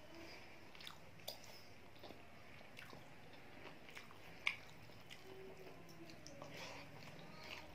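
Faint chewing and mouth sounds of a person eating rice and curry by hand, with soft squishy sounds of fingers mixing rice on the plate. A single sharp click stands out about four and a half seconds in.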